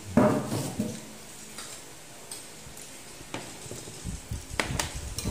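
Eating sounds at a table: a short, loud mouth sound from a diner eating soup just after the start, then a few sharp clinks of metal spoons against soup bowls.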